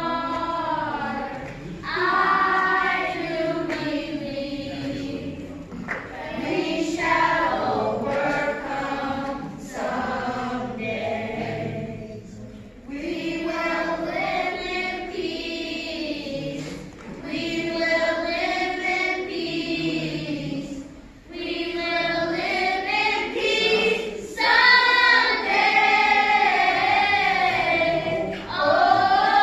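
Children's gospel choir singing together in sung phrases with short breaks between them, growing louder near the end.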